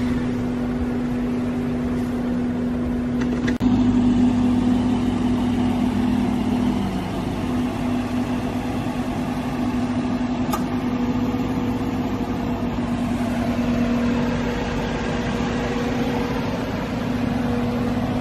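Aston Martin Vantage Roadster's V8 engine idling steadily through its exhaust.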